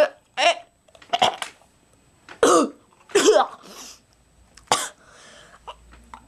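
A person coughing and gagging in about six short bursts over the first five seconds, with a homemade aluminium-foil tooth grill in the mouth.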